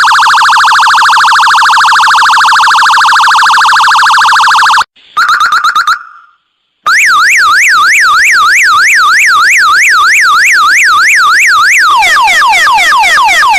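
A string of electronic siren tones with abrupt cuts between them. First comes a fast warble for about five seconds, then a short pulsed burst and a second of silence. After that a quick rising-and-falling yelp repeats about three to four times a second, and near the end it changes to repeated falling sweeps.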